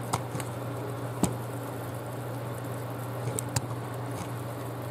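Metal fork stirring a flour-and-oil roux in a black skillet: a faint soft squishing with a few sharp clicks of the fork against the pan, over a steady low hum.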